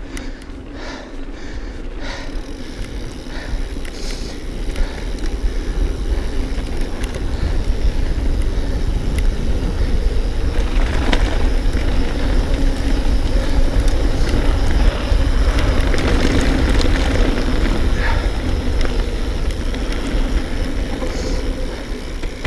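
Mountain bike running fast downhill on a dirt track: tyre noise and knocks from the bike under heavy wind buffeting on the microphone. It grows louder as speed builds and eases off near the end.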